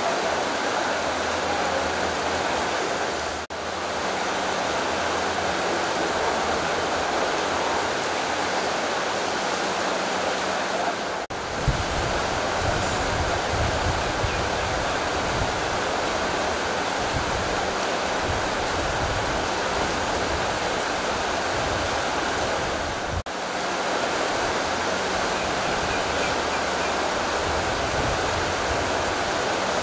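Shallow stream running over stones, a steady rush of water broken by three brief dips. A low rumble joins from about a third of the way through.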